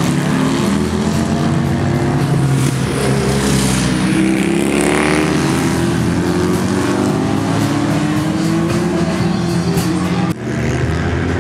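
Classic racing motorcycle engines running hard, more than one engine heard at once, their pitch slowly rising as they accelerate. The sound drops out abruptly for a moment near the end, then comes back.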